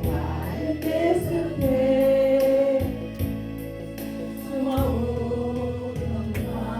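A group of voices singing a slow Korean ballad together in unison over a backing track with a steady beat.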